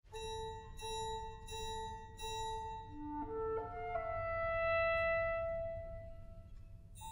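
Orchestra playing a film-score piece. A woodwind line sounds four repeated notes, then climbs to a long held note over a low steady undertone.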